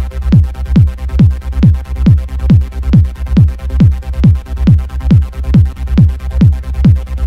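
Electronic dance music with a steady beat, a little over two beats a second.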